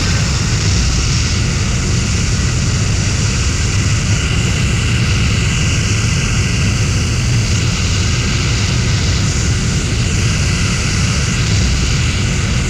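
Fighter jet engine running: a loud, steady rush of noise, heaviest in the low end, with a faint steady high whine and no change in pitch or level.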